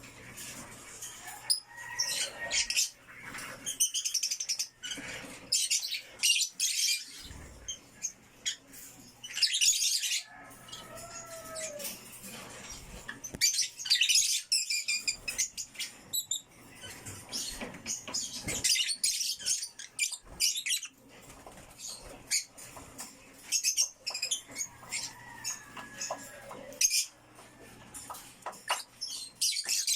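African lovebirds, violet mutation, chirping: rapid high-pitched chatter in irregular bursts with short pauses between.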